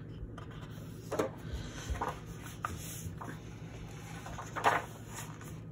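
A large paperback book being opened on a table: the cover and paper pages rustle, and hands smooth the open pages flat, in a few brief scuffs, the loudest about three-quarters of the way through.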